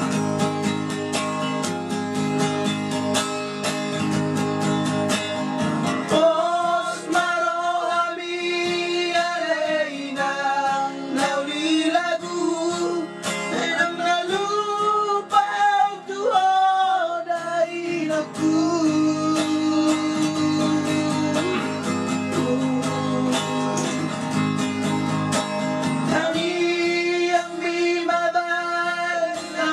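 Acoustic guitar strummed in a steady rhythm, with a man singing a Batak song over it from about six seconds in. The singing breaks off for several seconds past the middle and comes back near the end.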